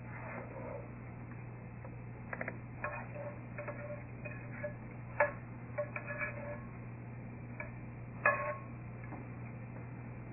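A utensil scraping and tapping against a frying pan as sauce is poured and scraped out into a glass bowl: scattered light clicks and scrapes with a slight metallic ring, and two sharper knocks about five and eight seconds in, over a steady low hum.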